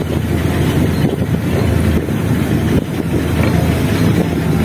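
Car driving slowly along a street: a steady low rumble of engine and road noise, with wind on the microphone.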